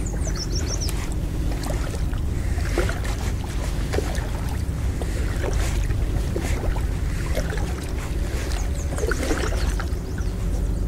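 Kayak on a lake with small water splashes and drips at the hull and paddle, over a steady wind rumble on the microphone. A songbird gives quick runs of high chirps about a second in and again near the end.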